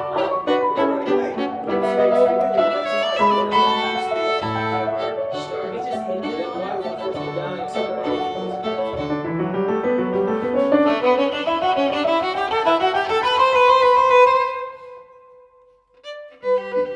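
Background music of violin with piano: quick string notes that climb in a long rising run and end on a held note fading out about fifteen seconds in, then after a short pause a new piece begins near the end.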